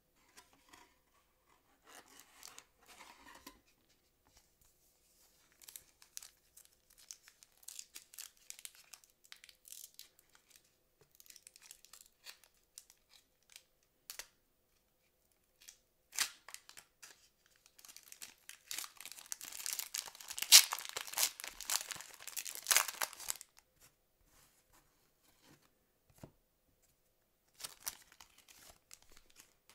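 Foil wrapper of a trading-card pack being torn open and crinkled, with bursts of paper-card rustling between. The loudest, densest tearing and crinkling comes about two-thirds of the way through, with a shorter burst near the end.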